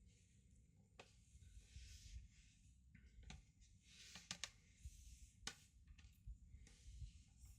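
Near silence with a few faint clicks and soft rustles of small plastic laptop parts being handled during disassembly, with a small cluster of clicks about halfway through.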